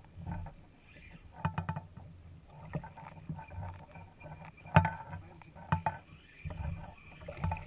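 Knocks and clicks of gear being handled on a fishing kayak, over a low rumble, with one sharp knock a little under five seconds in.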